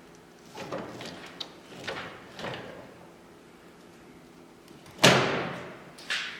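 Steel windshield frame of a 1946 Willys CJ-2A being swung to close, with a few scrapes and creaks, then a loud metal clunk about five seconds in that rings briefly, and a lighter knock about a second later.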